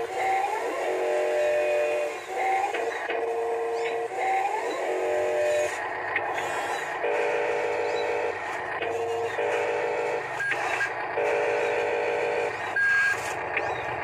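Small electric gear motors of a radio-controlled toy wheel loader whining in repeated short runs, each a second or so long, as the loader lowers its bucket and moves. Several runs begin with a short rising whine.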